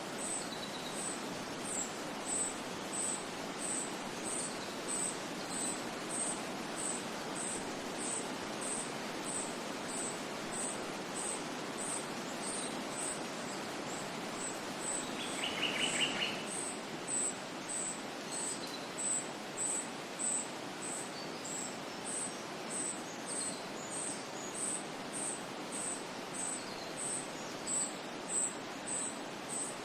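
Ambient nature soundscape: a steady noisy background with an insect chirping on one high note at an even pace, about three chirps every two seconds. Faint bird calls come now and then, and a short bird trill sounds about halfway through.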